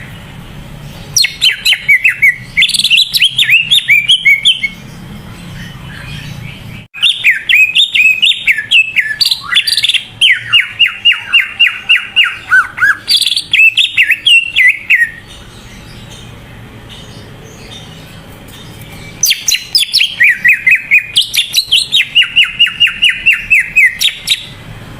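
Cucak ijo (greater green leafbird) in full song, three bouts of fast chattering notes repeated many times a second. Each bout starts high and settles into runs of rapid, even notes. A low steady hum fills the pauses between bouts.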